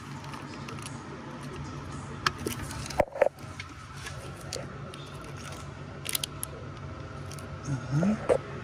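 Scattered clicks and light knocks of engine parts and hand tools being handled, over a steady low hum, with a short rising squeak near the end.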